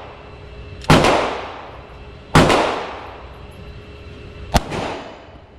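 9mm Glock 19 pistol firing single shots at a slow, steady pace, three shots about a second and a half apart, each with a long echoing tail; the third is sharper and shorter.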